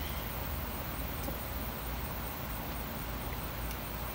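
Outdoor backyard ambience: a steady low hum and hiss, with a faint high-pitched chirping repeating evenly about three times a second.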